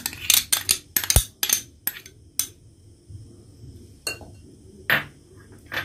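Steel spoon clinking and scraping against glass bowls as ginger-garlic paste is scraped out: a quick run of clinks over the first two seconds or so, then a few more near the end.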